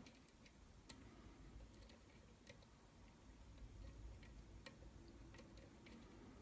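Faint, irregular ticks of a lock pick and tension wrench working the pins inside a Falcon challenge lock cylinder during single-pin picking, against near silence.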